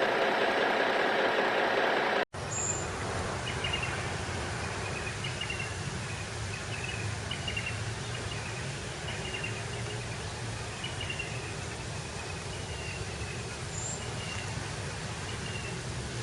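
A small motor runs steadily with a whine until it is cut off abruptly about two seconds in. After that there is a steady low rumble with a string of short, falling chirps.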